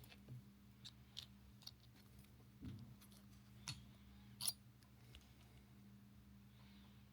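Faint, scattered clicks and taps from a Hyundai remote key fob's plastic case and coin battery being handled during a battery change, about seven in all, the sharpest about four and a half seconds in, over a low steady hum.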